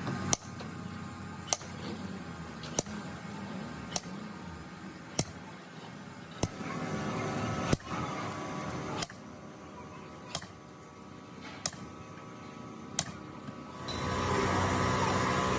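Sharp knocks repeating about once every second and a quarter over a steady hum, with a louder steady mechanical noise coming in near the end.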